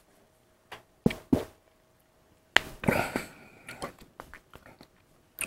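A man drinking beer from a glass mug: a few short swallowing gulps about a second in, then a breathy exhale after the sip, with small mouth clicks while he tastes it.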